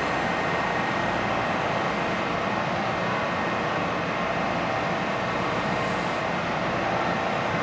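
Washington Metro rail cars standing at the platform with doors open, their onboard equipment running with a steady hum and a faint, unchanging high whine.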